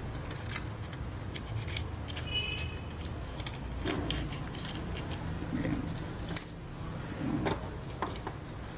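Metal transformer core pieces clicking and scraping lightly as they are handled and threaded into the coil, a scatter of small irregular ticks.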